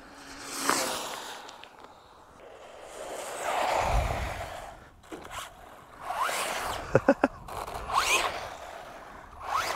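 WLtoys 124017 V2 brushless RC buggy running on tarmac: its motor whine sweeps past under a second in, then comes in several short rising bursts as the car is driven back in, with three sharp clicks about seven seconds in.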